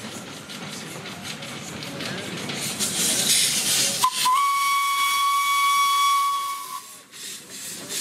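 Narrow-gauge steam locomotive passing with a hiss of steam that builds up, then one long steady blast on its steam whistle, about three seconds long, starting about four seconds in.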